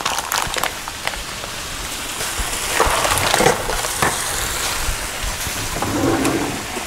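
Thin strips of raw sirloin going into a hot frying pan and starting to sizzle: a steady frying hiss with scattered crackles and light knocks.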